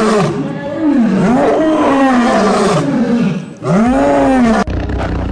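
A big cat calling: a run of loud rising-and-falling calls with a throaty ring, a brief pause, and one more call. About four and a half seconds in, the sound cuts abruptly to a different, noisier animal sound over a low hum.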